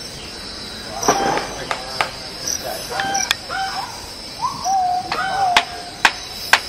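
Insects trill steadily and high, with a short pulse repeating over the trill. Irregular sharp knocks from work on the timber formwork come through, about half a dozen, the last few close together near the end. A couple of brief pitched calls sound around the middle.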